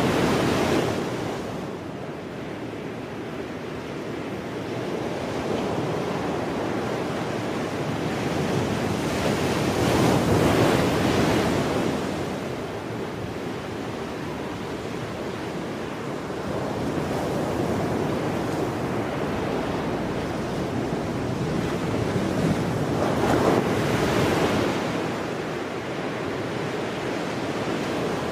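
Ocean surf breaking and washing in a steady roar, swelling into a louder surge twice, about ten and twenty-three seconds in.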